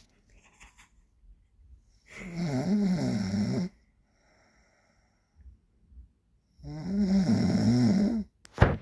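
A man snoring in his sleep: two long snores, each about a second and a half with a wavering pitch, about four seconds apart. A brief sharp knock comes near the end.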